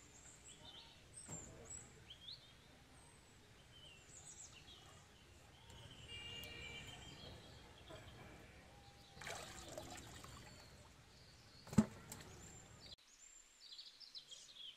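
Muddy water splashing and trickling as a hand scoops out a waterlogged hole in the mud, with birds chirping throughout and one sharp knock about twelve seconds in.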